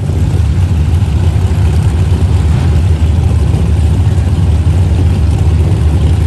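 Drag-racing cars' engines idling loudly at the starting line, a steady deep rumble with no revving.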